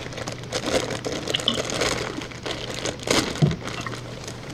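Plastic packaging crinkling and rustling as the welder's MIG gun and its cable are unwrapped and handled, with a few small clicks and knocks.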